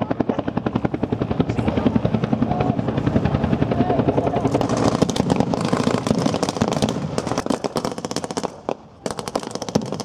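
Helicopter rotor beating in a rapid, even pulse, loud and close, with a brief drop near the end.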